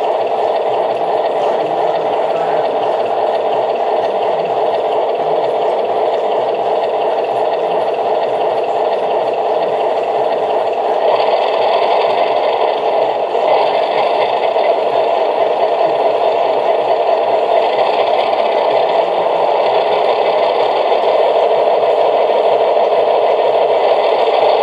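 Williams O scale RS-3 model locomotive's True Blast Plus sound system playing a diesel engine sound through its small onboard speaker, thin with no deep bass. It runs steadily, then from about halfway revs up through the throttle notches in steps, growing gradually louder.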